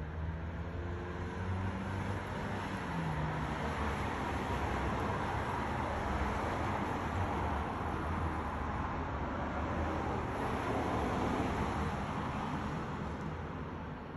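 Road traffic noise that swells over several seconds and eases off near the end, like a vehicle driving past.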